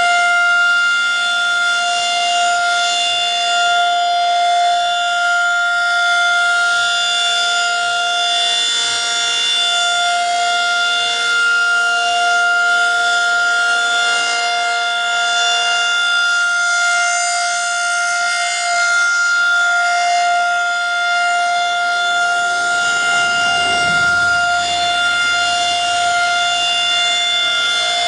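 Federal Signal 2001-SRN rotating outdoor warning siren sounding the Alert signal, a single steady tone held at constant pitch. Its loudness swells and fades gently as the siren head rotates.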